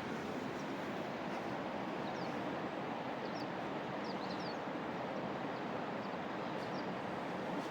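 River water rushing steadily, with a few faint, short bird chirps in the middle.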